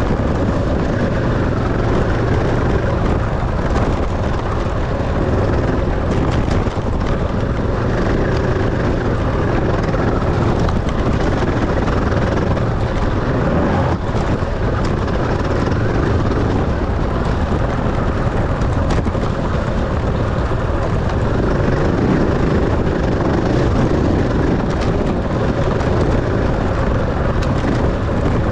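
Dirt bike engine running steadily and loud through a race lap, with a few faint knocks.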